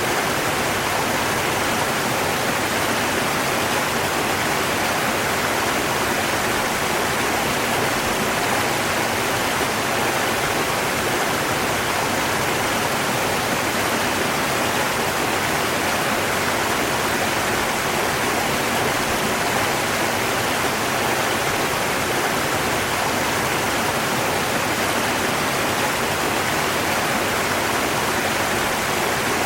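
River water flowing: a steady, unchanging rush of water with no separate splashes or other events.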